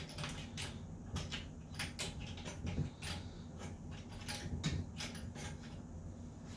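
Threaded end piece of a steel pinball playfield rotisserie being turned by hand into its powder-coated upright: a run of irregular light clicks and creaks as the threads bind and turn.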